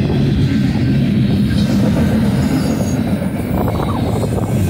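BNSF double-stack intermodal train's well cars rolling past close by: a loud, steady rumble of steel wheels on rail.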